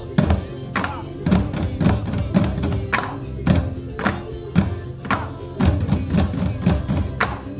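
Ensemble bucket drumming: plastic bins and paint buckets struck with drumsticks, playing a steady rhythm with loud accented strokes about twice a second and lighter strokes between.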